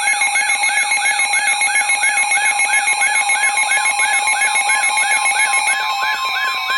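Weather radio's electronic alert siren: a loud, fast warbling tone that sweeps up and down about three times a second over steady buzzing tones. About six seconds in, the higher tones cut off and a steady alert tone near 1 kHz joins the warble, signalling an incoming warning broadcast.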